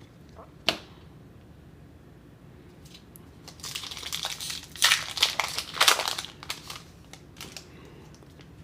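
Foil wrapper of a Pokémon trading card booster pack crinkling as it is handled and torn open: one click near the start, then a stretch of crackling from about three and a half to seven seconds in.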